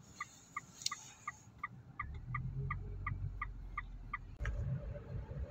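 Car turn-signal indicator ticking inside the cabin, about three ticks a second, then stopping near the end as the low engine and road noise grows louder.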